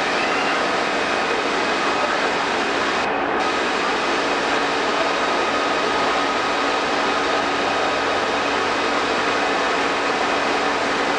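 Tea factory machinery running: motor-driven CTC rollers crushing green tea leaf and the belt conveyors carrying it, a loud, steady din with a few constant hums.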